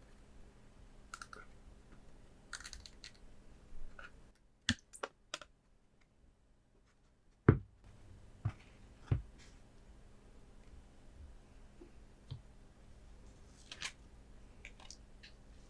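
Gloved hands handling Pokémon promo cards and plastic card stands: light scratchy rustles and clicks, a quick run of sharp taps around five seconds in, then three heavier knocks as a stand is set down, the first of them the loudest.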